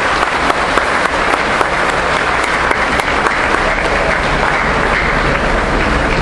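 A large congregation applauding: dense, steady clapping.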